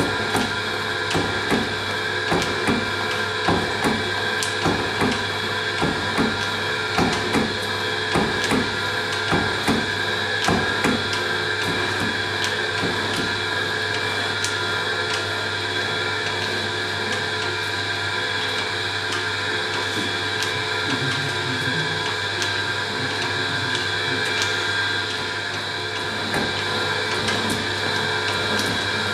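1850s Sharp & Stewart belt-driven slotting machine running and cutting metal, its ram stroking with a regular knocking for the first ten seconds or so. After that it carries on as a steady mechanical hum.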